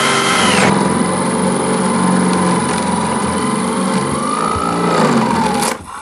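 Corded electric drill with a long spade bit boring through a wooden wall bottom plate, running loud and steady. Its motor whine drops in pitch about a second in as the bit bites into the wood, rises and falls again near the end, then the drill stops.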